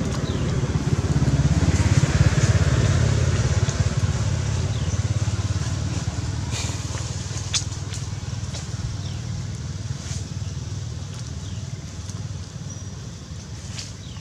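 Low rumble of a vehicle engine, loudest about two seconds in and slowly fading away, with a few faint sharp clicks.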